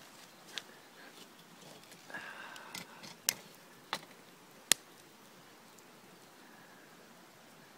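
Handling of food-prep items: four sharp clicks and taps, the loudest a little past the middle, with a short scraping rustle about two seconds in.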